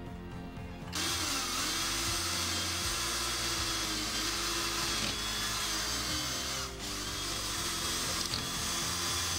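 Cordless drill boring into a pine board: the motor whines up sharply about a second in and runs steadily, easing off for a moment about two-thirds of the way through before carrying on.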